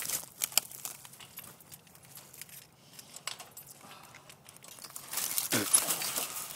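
Scattered light metallic clicks and clinks, with rustling, as cold hands work the lock and latch hardware of a chain-link gate. The sounds grow busier and louder about five seconds in, where there is also a short falling groan.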